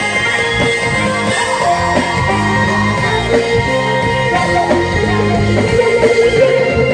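Live funk band playing loud: electric guitar, keyboards, bass and drum kit.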